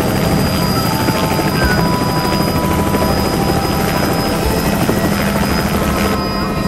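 Bell 206 JetRanger-type turbine helicopter hovering low over grass and settling in to land, its two-bladed rotor and turbine running loud and steady.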